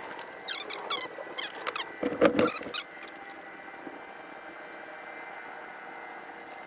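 Squeaks, clicks and scrapes of metal engine parts and hand tools being worked by hand: a run of short clicks in the first two seconds and a louder scrape about two seconds in, then only a faint steady hum.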